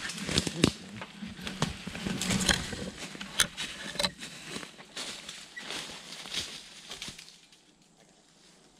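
Metal ladder stand knocking and clanking as it is pushed up hand over hand against a tree, with brush and leaves rustling; the knocks thin out and it goes quiet about seven seconds in.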